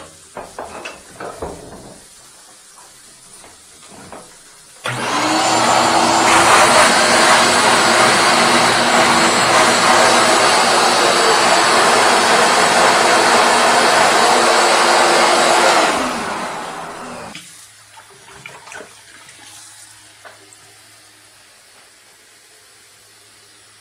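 Wet/dry vacuum motor switched on about five seconds in, spinning up with a rising whine and then running loud and steady as it sucks on a clogged drain through its hose. About eleven seconds later it is switched off and winds down. A few handling knocks come before it starts.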